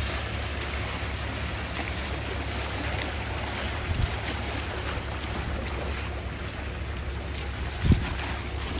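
Sea waves washing in a steady rushing hiss, with wind rumbling on the microphone and two brief low thumps, about four and eight seconds in.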